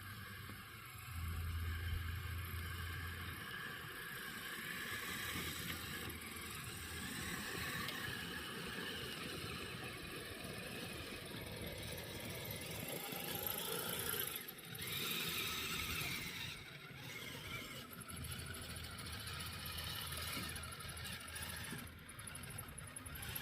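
Kyosho Blizzard RC snowcat driving on metal tracks: its small electric motor running and the tracks rattling and squealing, with the sound rising and falling as it moves.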